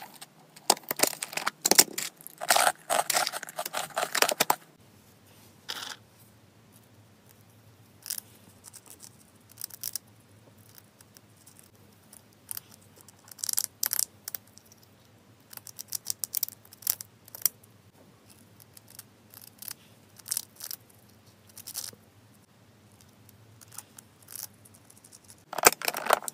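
Close handling of clear plastic storage containers of dried treats: several seconds of dense crackling and clicking, then scattered small clicks and crunches as a hamster nibbles a treat, and a sharp clatter near the end as a push-button container lid is pressed.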